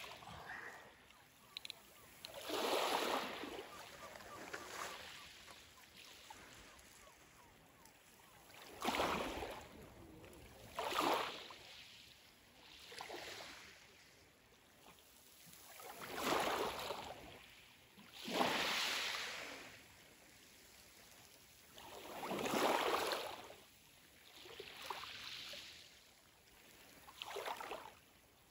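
Small waves washing in over a pebble shoreline, about nine separate washes that each swell and fade over a second or two.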